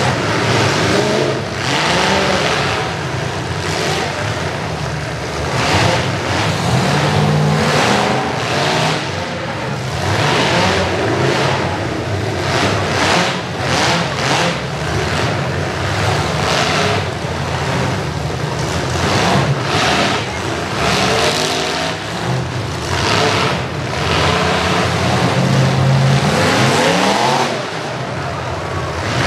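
Many demolition derby cars' engines running and revving up and down together, with repeated bangs of metal as the cars ram each other.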